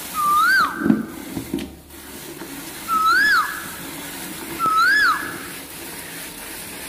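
A loud whistled animal call, rising then dropping, repeated three times about two seconds apart. Beneath it, milk squirts from a cow's teats into a metal pail as it is hand-milked.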